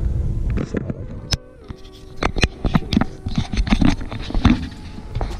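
Irregular taps, clicks and scratching scrapes of handling noise as the handheld camera moves about the engine bay.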